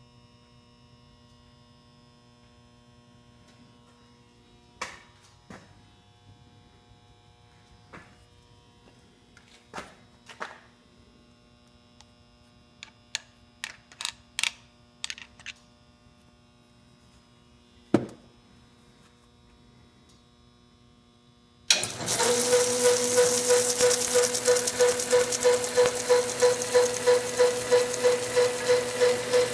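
A few scattered clicks and knocks on a South Bend metal lathe over a faint hum. Then, about two thirds of the way in, the lathe starts up suddenly and runs on its flat-belt drive with a steady whine and a regular beat about three times a second.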